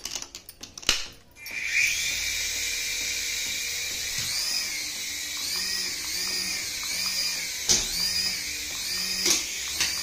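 Toy coaxial RC helicopter's small electric motors and rotors spinning up, then a steady high-pitched whine in flight, its pitch wavering up and down as the throttle changes.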